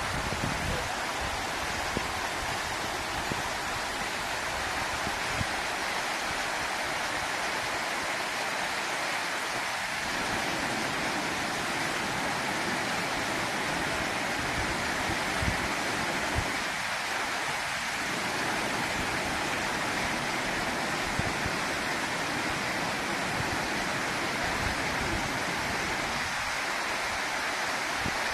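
Waterfall: falling water rushing steadily, with a few faint low thumps.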